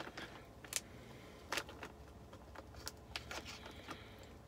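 A few sharp clicks and light taps from hands handling things, over a low steady hum.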